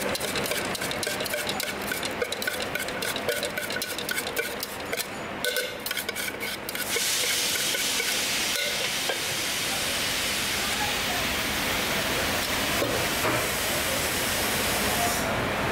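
Sliced green hog plums being tossed and stirred with spices in a steel tin. First a rapid run of clicks and taps, then from about seven seconds a steady brisk hissing rustle that stops abruptly near the end.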